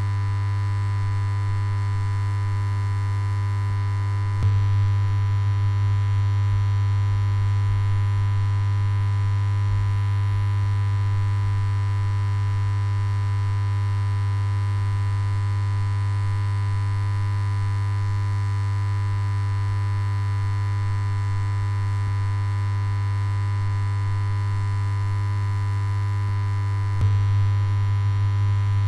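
Steady electronic synthesizer drone with a strong low hum and a held higher tone, shifting slightly about four and a half seconds in and again near the end.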